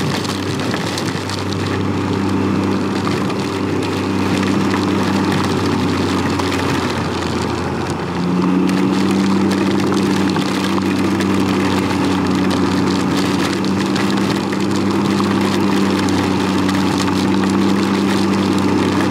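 Can-Am Ryker Rally's 900 cc three-cylinder engine running at a steady, low road speed under a constant hiss of heavy rain and water spray. The engine note gets louder about eight seconds in.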